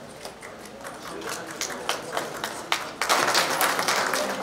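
A few scattered hand claps, then audience applause that swells about three seconds in.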